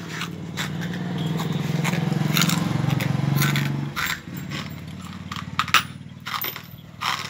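A low steady drone that stops about four seconds in, then scattered sharp clicks and crunches from shards of a broken light bulb being picked from a palm and chewed.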